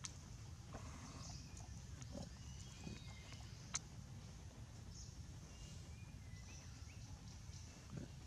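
Quiet outdoor ambience: a steady low rumble with faint high chirps and a few short squeaky notes, broken by two sharp clicks, one at the start and one nearly four seconds in.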